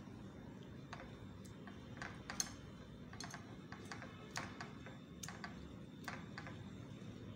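Wooden skewers threaded with marinated chicken clicking and tapping against a ceramic plate as they are turned in beaten egg: irregular light clicks, with one sharper click about two and a half seconds in, over a steady low hum.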